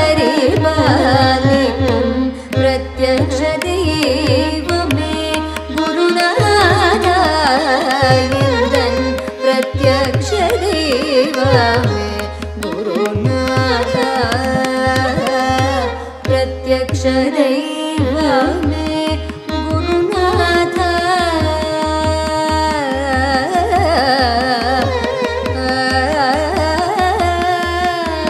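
Carnatic song in raga Begada, Adi talam: a young woman's voice singing gliding melodic phrases, with a violin following the melody and a mridangam keeping up a steady run of drum strokes.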